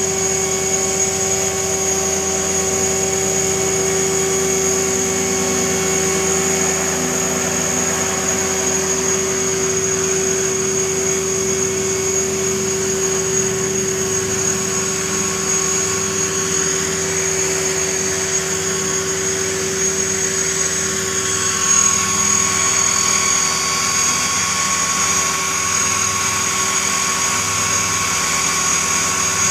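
Align T-REX 500 electric RC helicopter hovering, its brushless motor, gears and rotor blades making a steady high whine. The pitch shifts and the sound grows briefly louder about three-quarters of the way through as the helicopter moves.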